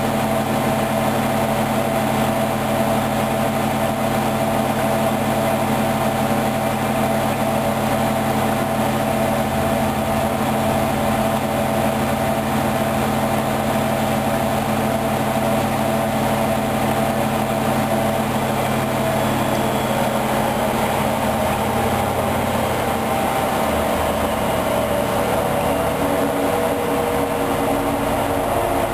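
Hoover Dynamic 10124 DP washing machine running a spin, its drum and motor giving a steady mechanical hum with a whine. The pitch shifts down slightly in the last third.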